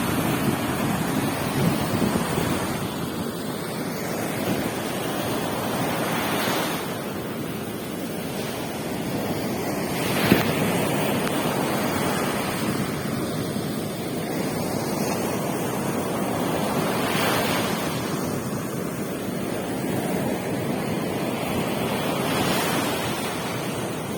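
Ocean surf: waves breaking and washing on a beach as a continuous rush, swelling with each breaker every few seconds, with some wind buffeting the microphone.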